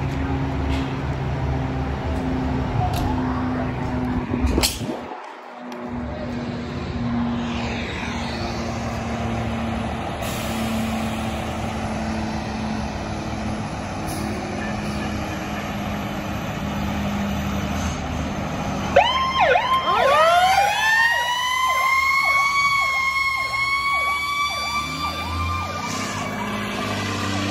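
Fire engine's diesel engine running steadily as the apparatus leaves the station. About two-thirds of the way in, its siren starts with a few short rising whoops, then winds up to a high, held wail.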